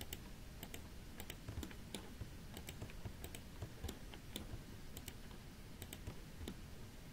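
Faint, irregular clicking of a computer mouse and keyboard, a few clicks a second.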